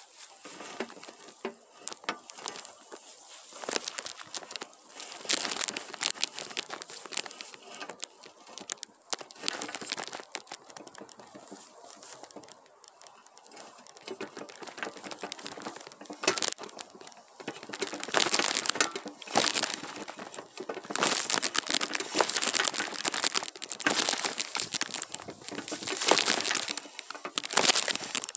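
Korean pine branches and needles rustling and crackling as a long harvesting pole is pushed up through the tree's crown, with needles brushing close to the microphone. The rustling comes in irregular bursts and grows louder and busier from about halfway.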